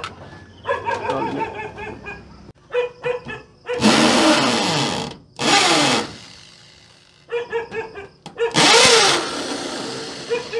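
Corded electric drill with a fake Makita sticker drilling into a wall in three short bursts, its pitch sliding down as it loads up. A dog barks in between.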